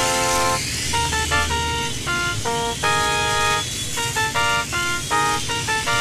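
Background music: a quick melody of short, detached notes that change pitch every fraction of a second.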